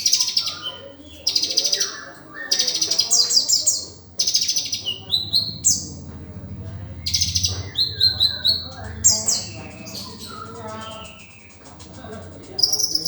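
A sunbird (the 'konin' Kolibri kept as a songbird) singing a chattering song: bursts of very rapid high trills alternating with short falling and rising whistled notes, repeated a dozen times or so, with a low hum in the middle. The varied phrases are the imitations ('isian') that keepers prize in this bird.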